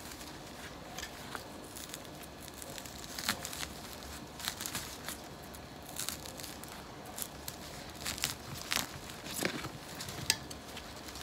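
Potted camellia root ball being pulled apart by gloved hands: potting soil crumbling and crackling and leaves rustling, in irregular crackles and scratches.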